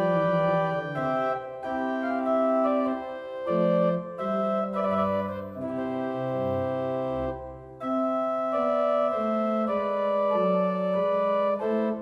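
Church pipe organ playing sustained chords that move from one to the next every second or so, with deep pedal bass notes sounding in the middle.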